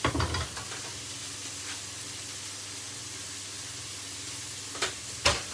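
Sirloin steaks sizzling steadily in a frying pan. A short clatter comes right at the start, and two sharp knocks near the end.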